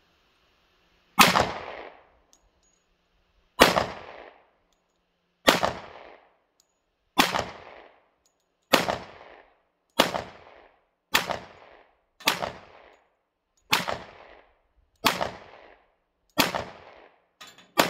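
Glock pistol fired twelve times, slowly at first and then at about one shot a second, each shot trailing off in a short echo.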